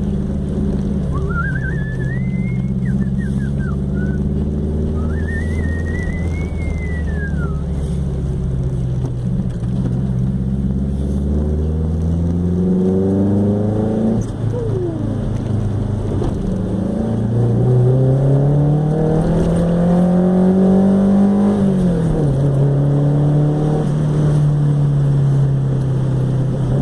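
Chevette 1.6 S naturally aspirated four-cylinder engine breathing through a 4-into-1 header and open straight pipe, running under way. It climbs in pitch as it accelerates about halfway through and again later, then drops sharply and settles to a steady drone.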